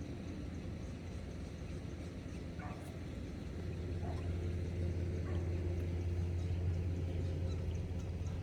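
A steady low engine hum, growing louder about three and a half seconds in, with a few faint short sounds over it.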